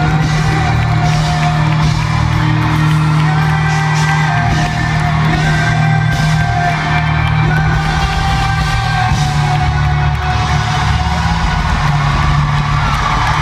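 Live pop-rock band playing in an arena, with heavy steady bass and long held sung notes, while the crowd whoops and cheers.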